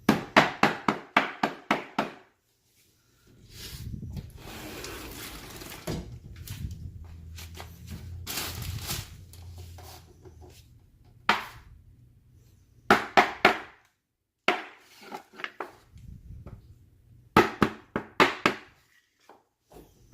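Rubber mallet knocking laminate flooring planks together to close the click joints. The blows come in quick bursts of a few strikes, about five a second. Between the first two bursts there are several seconds of scraping and shuffling.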